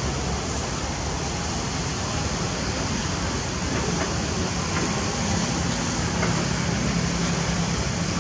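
Steady background noise with a low hum underneath, like distant traffic; no clear monkey calls.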